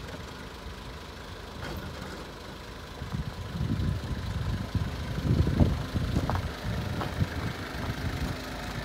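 Nissan Civilian bus's TD42 4.2-litre straight-six diesel engine idling steadily. From about three seconds in, wind buffets the microphone in gusts.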